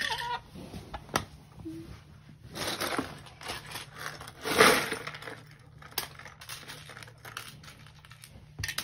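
Loose plastic LEGO bricks clattering and clicking as hands rummage through a box of bricks, with a louder rattling burst about halfway through.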